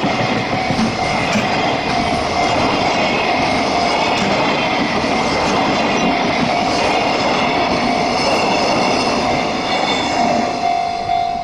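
Freight train passing a level crossing, its wagons' wheels rumbling and clattering steadily over the rails, with the crossing's warning bell ringing behind it. Near the end the train noise falls off and the bell's even ringing stands out.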